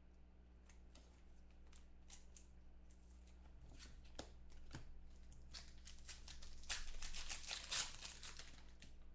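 Foil trading-card pack wrapper being handled and ripped open: scattered light crinkles that build to a dense burst of crinkling and tearing about seven seconds in.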